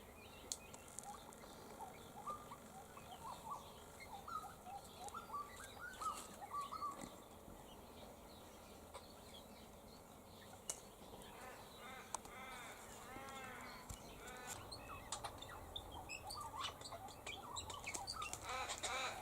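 Birds calling in the tree canopy, faint. Scattered short chirps come first, then from the middle on a bird gives runs of quick, repeated, arched call notes.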